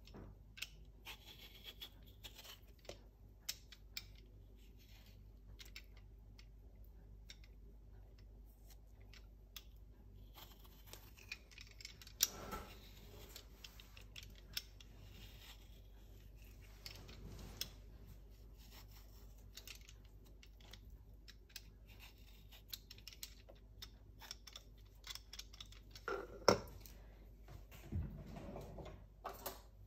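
Handheld vegetable peeler scraping the skin off a ripe peach in many short, faint strokes, with small clicks. A couple of louder knocks come near the end.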